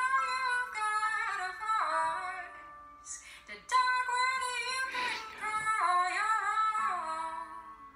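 A woman's solo singing voice in a slow song, sung in long held phrases with a short break a little after three seconds in, fading near the end.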